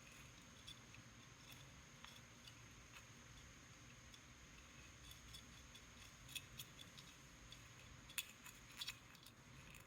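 Faint, scattered small clicks and taps from small hard objects being handled, with a few slightly louder clicks toward the end.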